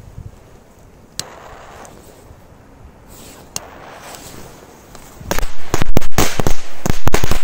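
Firecracker belt (a 'machine-gun belt' of small firecrackers) lit with a torch lighter, which clicks a few seconds in. It then goes off in a rapid, irregular string of loud bangs from about five seconds in.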